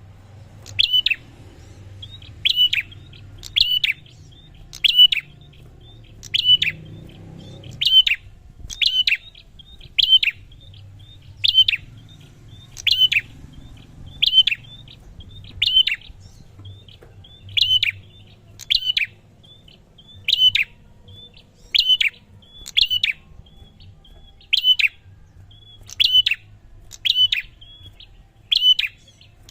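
A prinia (prenjak) calling, one sharp, high chirp repeated about every second and a half, with faint softer notes in between.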